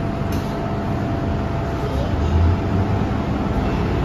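MTR M-train electric multiple unit running through a tunnel, heard from inside the car: a steady rumble from the wheels and rails with a faint steady whine, and one short tick about a third of a second in.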